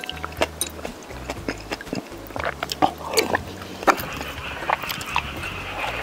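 Close-miked eating sounds: chewing and slurping soup, with many short clicks of a wooden spoon against bowls. A steady high tone joins about four seconds in.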